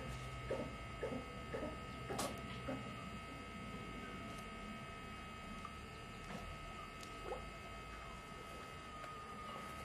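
Faint steady hum with a thin high tone held throughout, and a few soft clicks during the first three seconds.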